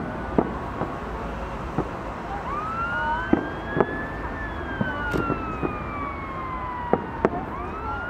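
Fireworks shells bursting: about ten sharp bangs at irregular intervals. Behind them an emergency vehicle siren wails, rising slowly, falling over about three seconds, then starting to rise again near the end.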